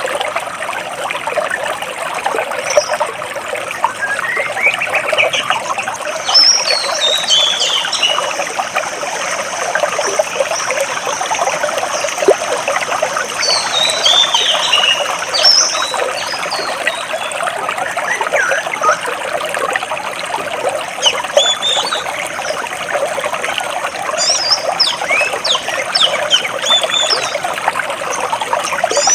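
Stream water flowing and trickling between large rocks, a steady rushing hiss, with small birds chirping in several quick runs of high, sliding notes.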